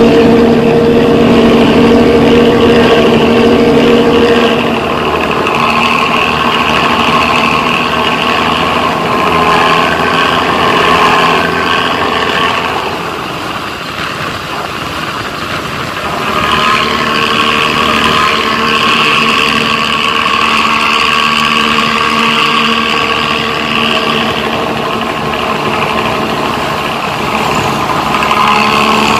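Motorcycle engine running through a Luragung 'ngorok' (growling) aftermarket exhaust, with a steady layered engine note. It is loudest for the first few seconds, drops back around the middle, then rises again.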